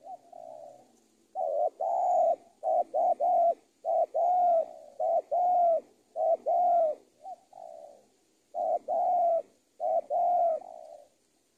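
Spotted dove cooing: a run of repeated coo phrases of two or three notes each, separated by short pauses, with a longer pause a little past halfway.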